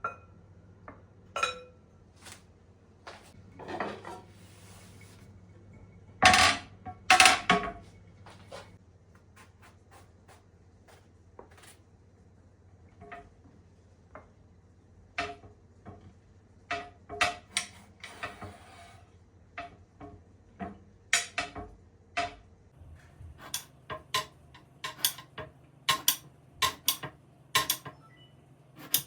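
Dishes and cutlery being handled: scattered clinks and knocks, with two louder, longer noisy sounds about six and seven seconds in, and quicker, closer-spaced taps in the second half.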